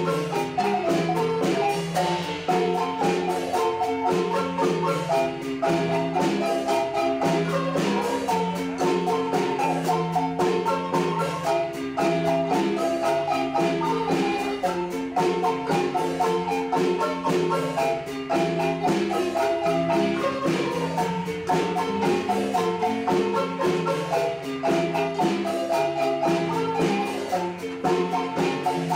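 Guatemalan marimba ensemble playing, with several players striking the wooden bars of a large and a smaller marimba with mallets: a fast melody of many short notes over a lower bass line.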